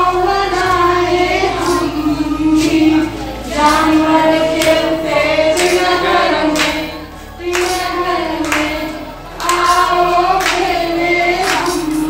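Women singing a Hindi children's action rhyme together in phrases, with hand claps keeping time.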